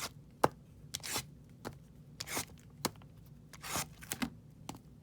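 Trading cards being handled and slid off a stack: about eight short, papery swishes and flicks at irregular intervals.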